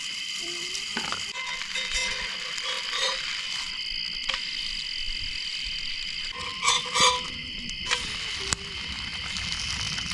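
Steady high-pitched chorus of crickets, with a few sharp clicks scattered through it and a brief louder sound about two-thirds of the way in.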